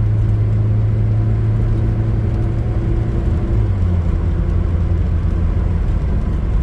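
2000 Nissan Frontier XE pickup's KA24DE four-cylinder engine running steadily, its low hum shifting slightly in pitch about four seconds in.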